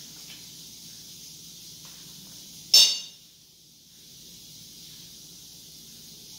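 One sharp metallic clink about three seconds in, a utensil knocking against a stainless steel mixing bowl, ringing briefly, over a steady faint hiss.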